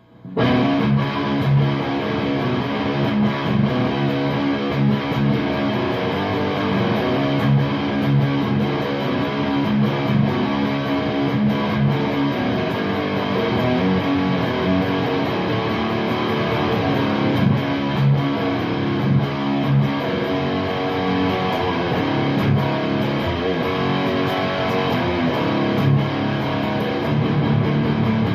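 Electric guitar played through an Orange Super Crush 100 solid-state amplifier on its distorted dirty channel: continuous overdriven chords and lines, coming in suddenly at the start.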